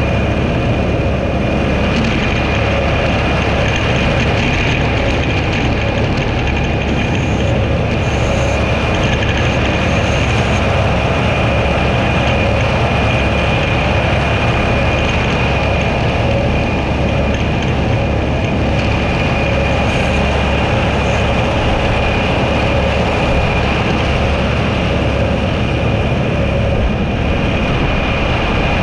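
Tractor and roadside mower running steadily under load: an even, heavy engine drone with a steady high-pitched whine over it.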